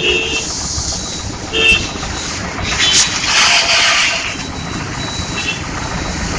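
Busy road traffic with short vehicle horn toots, one at the start and another under two seconds later. A burst of hissing follows about three seconds in.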